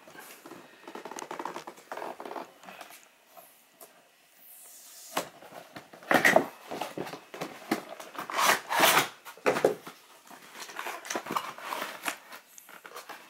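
Paper and cardboard gift packaging being ripped and rustled by hand in irregular scrapes and tears, the loudest about six and nine seconds in.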